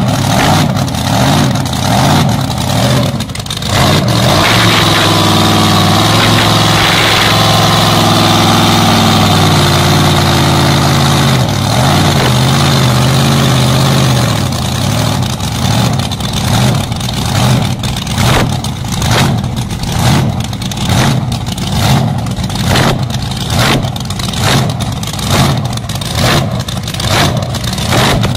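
Twin supercharged engines of a dragster running: uneven for the first few seconds, then held at a steady higher speed for about ten seconds, then dropping to a lumpy idle that surges about once a second.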